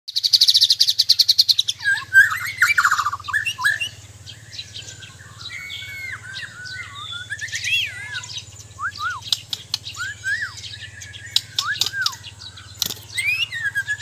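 White-crowned shama (Bornean murai batu) singing: a loud, fast high trill for about the first two seconds, then a long varied run of clear whistled notes that slur up and down, broken by sharp clicks.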